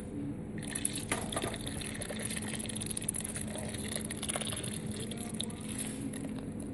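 Canned lager (Heineken pils) poured into a stainless steel pot over crab claws, gushing and fizzing as it foams, with a few splashes. The pour picks up about half a second in.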